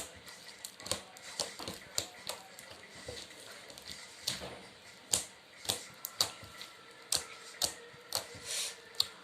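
Thick clicky slime being poked and squeezed by hand, giving off sharp, irregular clicks and pops, about one to two a second, as trapped air pops in the slime.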